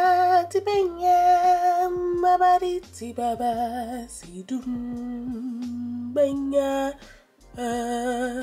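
A woman singing a slow melody, holding long notes with vibrato; the notes drop lower about three seconds in, with a short break near the end.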